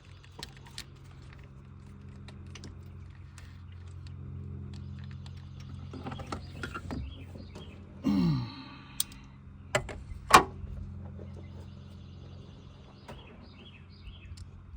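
Scattered light clicks and knocks of hand tools working on the engine, the sharpest about ten seconds in, over a steady low hum. A short falling whine comes about eight seconds in.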